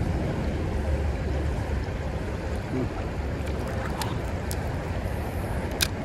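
Shallow creek rushing over a riffle: a steady, even wash of moving water with a low rumble. A few sharp clicks come near the end, the loudest just before it ends.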